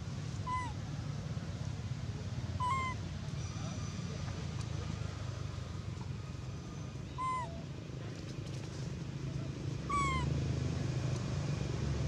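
Four short coo calls from a macaque, each dropping in pitch, a few seconds apart, over a steady low background rumble.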